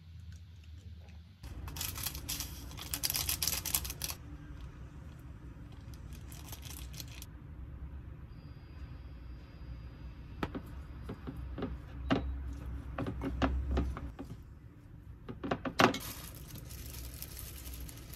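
Kitchen handling sounds: a run of light clicks and knocks, with a few stretches of hissing noise and a low hum underneath.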